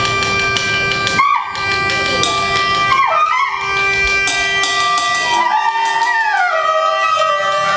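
Free-improvised live music: long held reed tones from baritone saxophone and pianica, some sliding downward in pitch, over scattered drum and cymbal hits.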